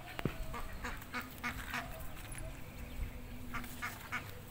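Domestic ducks quacking in short, scattered calls.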